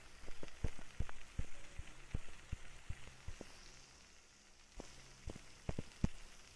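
Suji pitha deep-frying in hot oil in a wok while a wire-mesh skimmer works among them: irregular sharp pops and clicks, a few a second, over a faint sizzle. The pops thin out in the middle and pick up again near the end.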